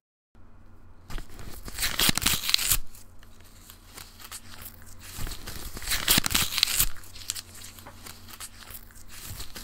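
Brown kraft paper mailer crinkling and tearing as it is handled and opened, with two louder spells of rustling, about a second in and about five seconds in.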